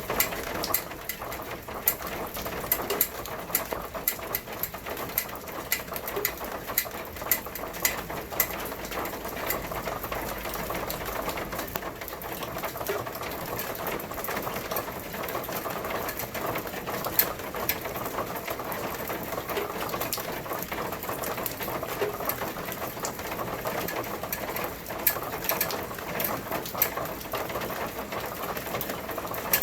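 Steady rain pattering, with a dense, irregular stream of sharp drop taps.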